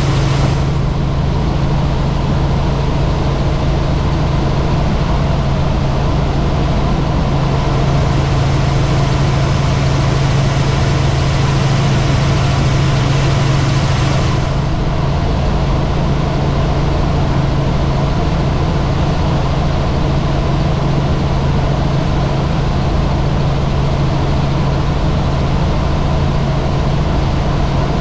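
Helicopter running in flight: a loud, steady drone of engine and rotors with a strong constant low hum. A hiss over it drops away about halfway through.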